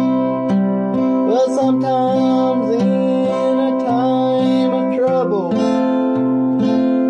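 Acoustic guitar picked with a thumb pick, a bass note about every half second under ringing chords. A man's voice sings one long, bending line from about a second in until about five and a half seconds.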